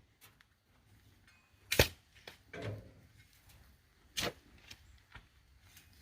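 Two sharp knocks about two and a half seconds apart, with a few fainter clicks and taps between them.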